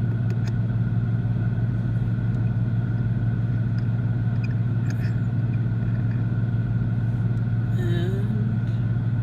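Steady low hum of a 2015 Mustang's 5.0 V8 idling, with a few light clicks.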